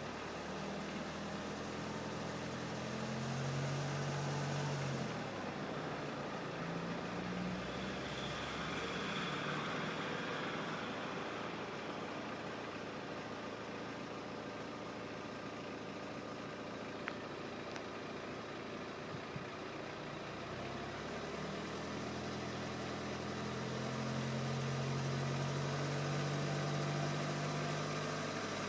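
BMW 118d's four-cylinder diesel engine running steadily, with a noise the owner suspects is coming from the crankshaft.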